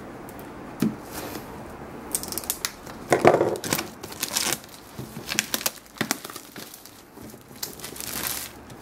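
Headphone packaging being cut and pried open by hand, crinkling, crackling and tearing in quick irregular bursts. It starts about two seconds in and is busiest around three seconds in.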